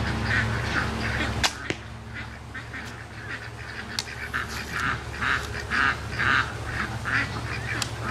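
A traditional bow shot: a sharp snap of the string on release about a second and a half in, then a second knock a moment later as the arrow strikes. Ducks quack repeatedly throughout.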